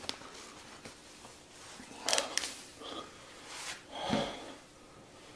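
A man breathing hard through his mouth in short, breathy puffs and gasps, a few of them from about two seconds in, as the burn of the One Chip Challenge pepper chip rises in his mouth.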